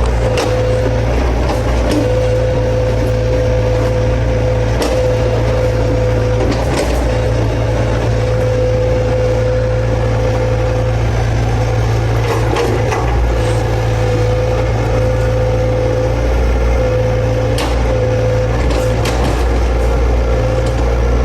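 Komatsu excavator running steadily, a constant low engine drone with a steady hum over it, and occasional sharp knocks scattered through.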